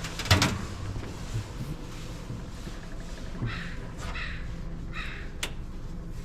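A crow cawing three times, a little past halfway, over a low steady rumble. A sharp knock comes right at the start.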